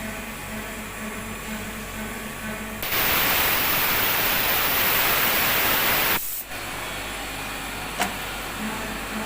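CNC engraving machine running with a steady pulsing hum. About three seconds in, a loud rushing hiss starts, lasts about three seconds, then cuts off suddenly, followed later by a single sharp click.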